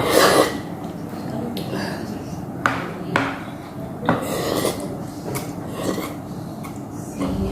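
Eating at a table: a dish knocking and clinking several times, with mouth and slurping noises between.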